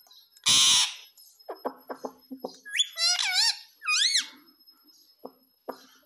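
Male Indian ringneck parakeet calling: one loud, harsh squawk about half a second in, then a short run of quick clicking chatter, then two wavering whistles around the middle, and a few soft clicks near the end.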